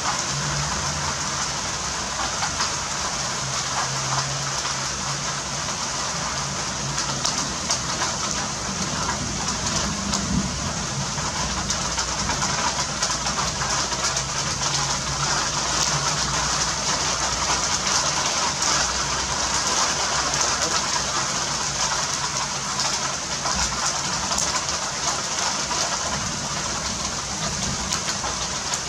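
Torrential downpour: a steady, loud hiss of heavy rain falling and splashing on a roof, with a low rumble underneath.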